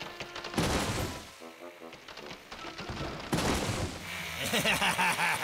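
Bursts of rapid mechanical rattling from tree-cutting in the forest, with a fast even rattle near the end, over cartoon background music.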